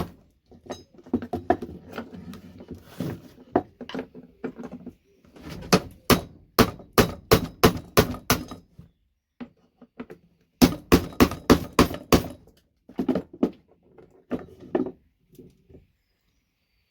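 Quick runs of sharp taps, a few a second with pauses between: a chisel being struck to break the plastic top off a VGA connector and loosen its gold-plated pins.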